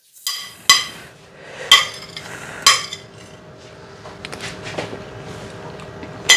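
Steel spoon clinking sharply against a plate and cooker as rice is scooped out: a few ringing clinks about a second apart in the first three seconds, then quieter scraping, and one more clink near the end.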